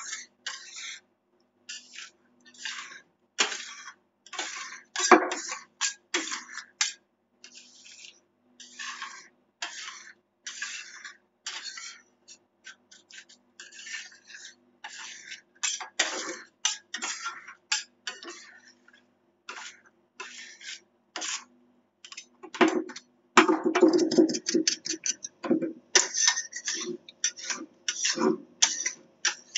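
Metal spatulas chopping and scraping ice cream mix on a frozen cold plate in irregular strokes, with a quick run of rapid chops about three-quarters through, over a faint steady hum.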